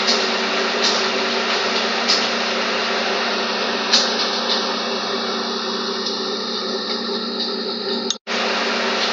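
Steady hiss with a low hum, like a fan or small motor, and a few faint clicks. The sound cuts out to silence for an instant about eight seconds in.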